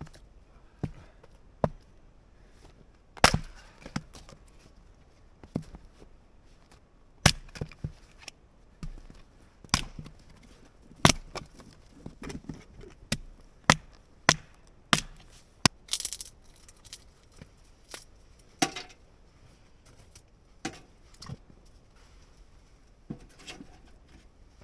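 Wood being chopped: about two dozen sharp, separate strikes at irregular intervals, fewer and further apart toward the end.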